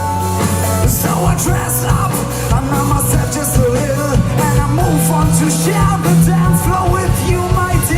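A rock band playing live, with a sung or lead melody over steady bass, drums and guitar.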